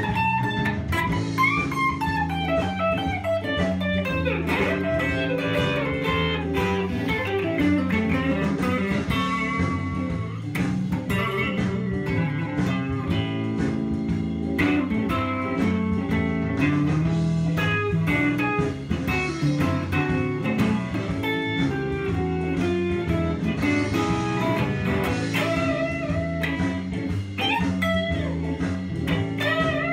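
Fender Stratocaster electric guitar playing a blues lead line with bent and wavering notes, including a falling run of notes in the first few seconds, over a steady low backing.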